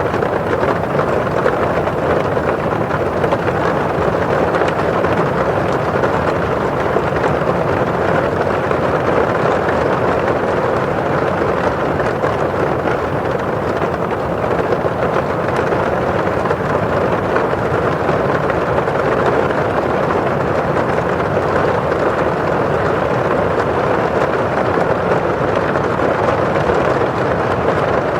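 Steady rain drumming on window glass and falling outside: a dense, even wash of noise, fuller in the low and middle range than in the highs, with no single drops standing out.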